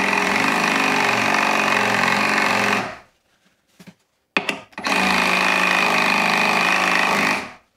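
Reciprocating saw driving a 300-grit fret crowning file at reduced speed, the file rasping across a guitar fret to recrown it. It runs in two steady stretches of about three seconds each, with a short pause and a couple of small clicks between.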